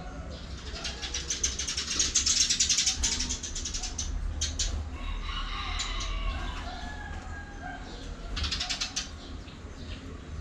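Cockatiels chirping and calling, with a burst of rapid wing flapping starting about a second in and lasting a couple of seconds, and a shorter flurry of flapping near the end.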